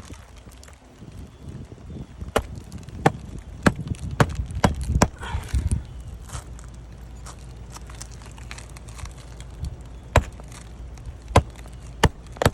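Sharp knocks of a hammer working on asphalt roof shingles and nails: a run of six strikes about half a second apart, a pause, then three more, over a steady low wind rumble.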